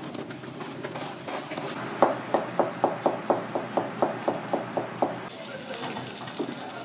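Kitchen knife chopping garlic cloves on a cutting board: a quick, even run of about a dozen chops, roughly four a second, starting about two seconds in. Near the end, a soft sizzle of garlic frying in oil.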